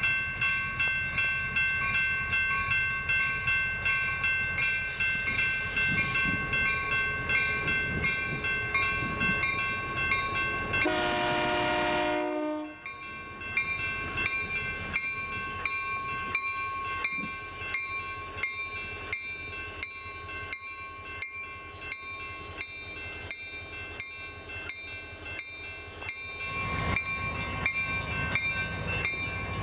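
Passenger train going by behind its diesel locomotives, its wheels clicking steadily over rail joints at about two to three clicks a second. About eleven seconds in, a locomotive horn sounds one short blast that cuts off suddenly.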